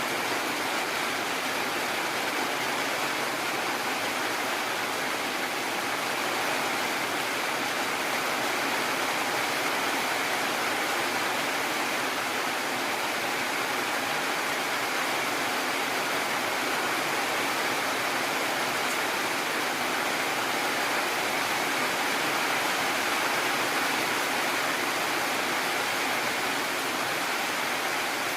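Heavy rain falling steadily, an even unbroken hiss without thunder claps.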